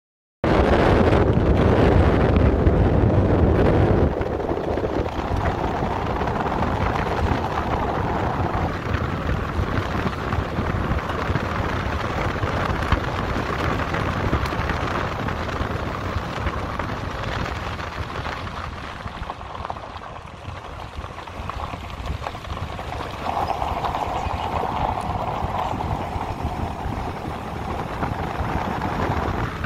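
Wind rushing over a phone microphone held out of a moving car's window, mixed with the car's tyres rolling on the road. It is loudest and deepest for the first four seconds, then settles into a steadier rush that eases a little about twenty seconds in.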